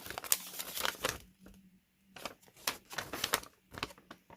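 Folded paper instruction leaflets being handled and unfolded: crisp rustling and crackling in the first second, then, after a brief pause, several quick clusters of sharp paper crackles.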